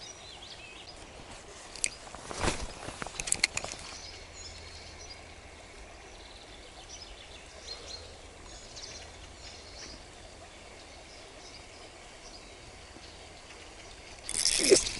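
Riverbank ambience: a low steady background with scattered short bird chirps. A few sharp clicks and knocks come about two to three and a half seconds in, and a loud rustling burst near the end.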